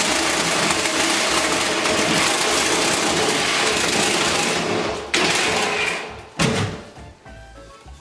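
Reciprocating saw cutting through thin galvanized steel duct pipe, a loud, steady, rasping buzz for about four and a half seconds. It stops briefly, cuts again for about a second, then stops as the cut is finished.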